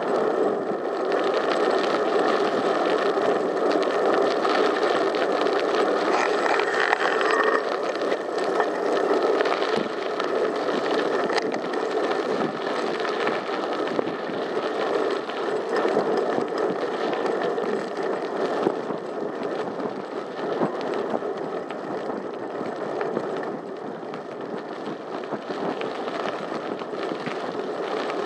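Bicycle riding along a tarmac cycle path: steady rolling noise from the tyres and the ride, with an occasional small click or rattle.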